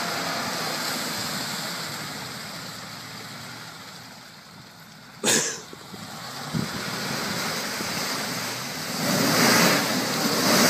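Wind rushing, fading over the first few seconds and swelling again near the end, with a sharp knock about five seconds in.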